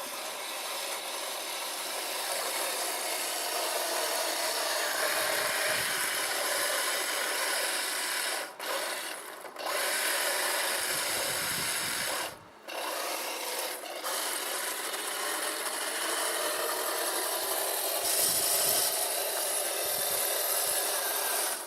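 Heng Long 1/16 scale Leopard RC tank running: its electric drive motors and gearboxes make a steady rasping whir along with the tracks. The noise cuts out briefly a few times, around the middle, as the tank stops and starts again.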